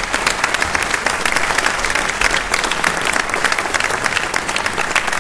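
Audience applauding: many hands clapping in a dense, steady stream of claps, swelling just before and holding strong throughout.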